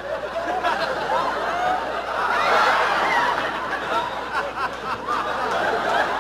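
Studio audience laughing, many voices chuckling and tittering at once, swelling louder about two seconds in.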